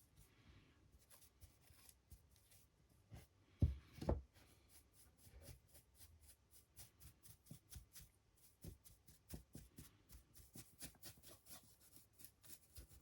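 A paintbrush scratching and tapping in quick strokes against a 3D-printed miniature, with two dull knocks on the desk about four seconds in.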